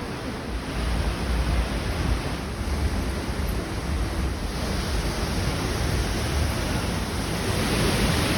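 Steady rushing of Tegenungan Waterfall's falling water, a constant noise with a deep rumble that grows louder about halfway through and again near the end.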